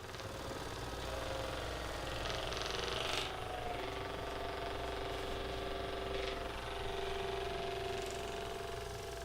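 Electric percussion massager running with a steady, rapid buzzing pulse, its pitch shifting slightly about three seconds in.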